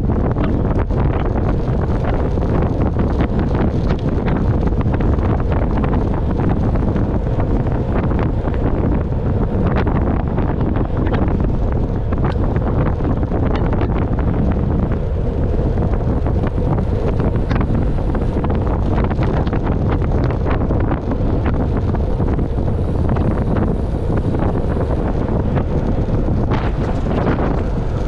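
Wind buffeting the microphone: a steady, loud low rumble broken by frequent short crackles.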